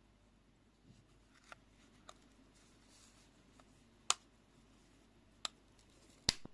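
A handful of sharp clicks at uneven intervals from handling a small mechanical folding travel clock, the loudest about four seconds in and near the end. These are separate handling clicks, not a steady ticking movement.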